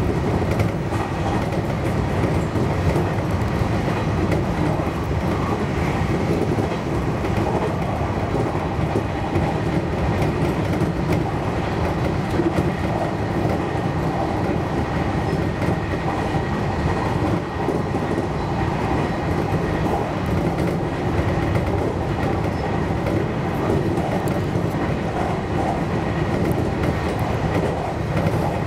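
JR Kyushu 813 series electric train running along the line, heard from inside the front car: a steady rumble of wheels on rail and running gear.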